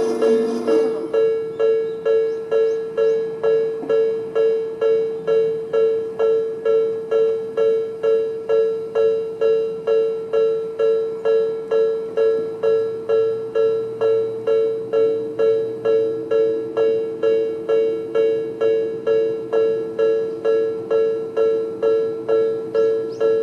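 Japanese railway level crossing's electronic warning bell, Tobu-style sound B, ringing in an even repeating pattern of about two strikes a second.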